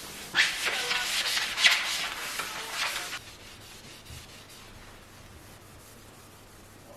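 A sponge scrubbing glazed wall tiles in quick back-and-forth strokes, about two a second, which stop about three seconds in.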